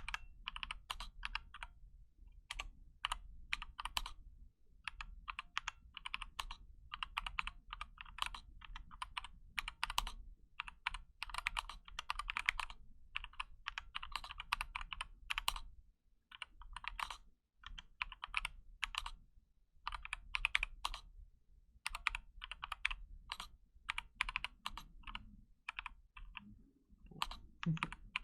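Typing on a KBD75 mechanical keyboard fitted with Novelkey Cream linear switches: an uneven, fairly slow run of key strikes, several a second, with brief pauses between bursts.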